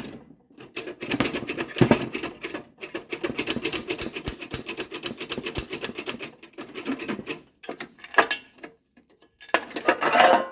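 Rapid metallic clicking and rattling from the coin mechanism of a 1963 payphone being worked by hand while a coin is jammed in it, a long fast run of clicks in the middle and a louder clatter near the end.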